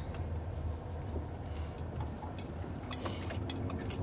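Steady low road and engine rumble inside a moving car's cabin. From about three seconds in, a quick run of light clicks and clinks.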